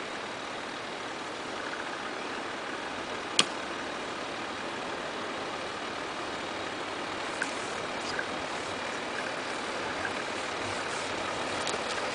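Land Rover Discovery 3 crawling slowly down a steep sandy slope, its engine running low and steady, growing slightly louder as it comes closer. A single sharp click sounds about three and a half seconds in.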